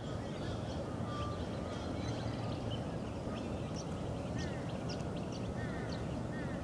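Wetland ambience: many short bird chirps and calls over a steady low rumble, with a quick run of repeated notes near the end.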